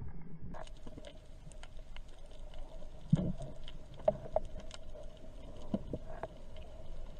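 Underwater sound picked up by a camera in its housing: a low, muffled rumble of water movement with scattered clicks and a few sharper knocks, the loudest about three seconds in, over a faint steady hum.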